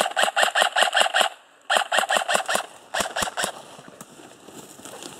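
Airsoft gun firing three full-auto bursts, about seven shots a second: a long burst, a second one after a short pause, and a short third about three seconds in.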